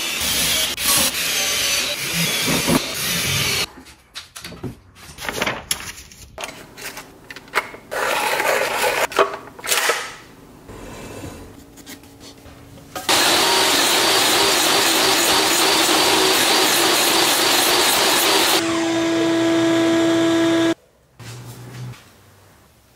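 Woodworking in a shop: tools scraping and knocking on wood. About halfway through, a power tool runs steadily for about five seconds, then a motor hum continues briefly and cuts off suddenly.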